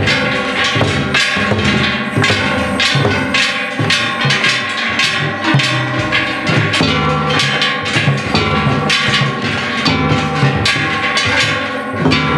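Shishimai lion-dance accompaniment: hanging brass gongs struck in a fast, steady, clanging rhythm, with drum beats underneath.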